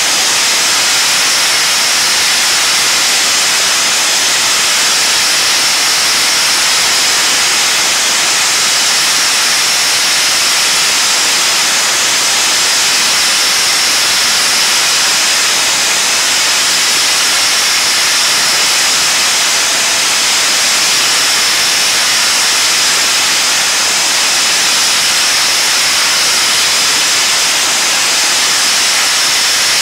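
Sponge-media blasting nozzle running continuously: a loud, steady hiss of compressed air and sponge abrasive striking painted wooden planks, with a steady high whistle running through it.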